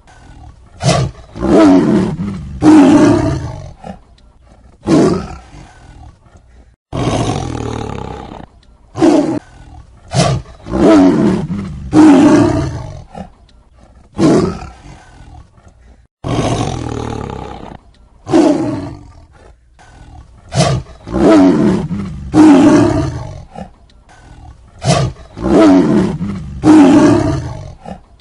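Tiger roaring over and over: a run of short, rough roars every one to two seconds, with longer roars that start abruptly about seven and sixteen seconds in.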